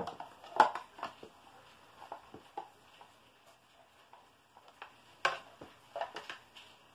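A scuba mask and its hard plastic case being handled: scattered plastic clicks, taps and rustles, with the sharpest knocks about half a second in and again about five seconds in.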